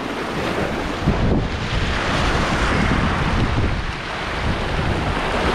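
Ocean surf washing over a rock ledge, with wind buffeting the microphone. A wave's wash swells up about two seconds in and fades again.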